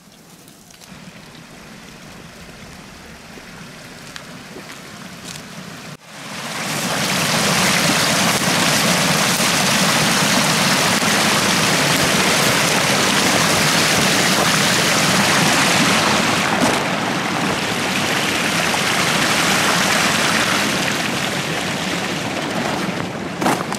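Water rushing over a beaver dam: a steady rushing noise, faint and slowly growing at first, then loud and even from about six seconds in.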